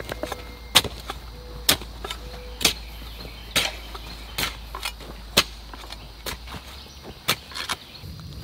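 Garden hoes chopping into loose garden soil, a sharp strike about once a second.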